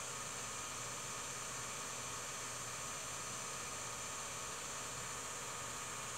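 Steady hiss with a faint low mains hum: the noise floor of an empty soundtrack on a silent home-movie film transfer.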